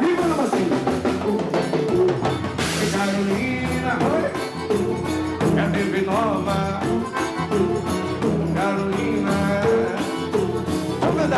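Live forró band playing: an accordion holds the melody over a steady percussion beat.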